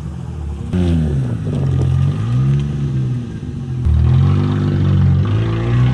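Toyota Soarer's 1JZ-GTE turbocharged inline-six running under load on the road, its note rising and falling repeatedly as the car accelerates and changes gear, with sudden jumps in sound about a second in and near four seconds.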